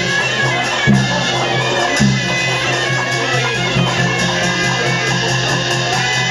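Burmese traditional ensemble music accompanying a marionette show, led by a reedy wind instrument over a steady low drone, with short percussive accents about one and two seconds in.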